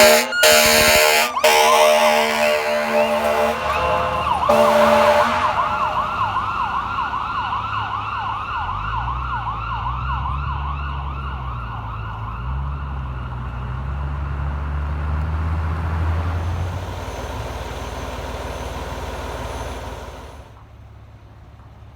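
Fire engine responding with its siren: air horn blasts in the first second and a half and again about four and a half seconds in, over a fast electronic yelp siren that carries on and fades as the truck moves off. A low engine rumble swells about halfway through, and the siren cuts out near the end.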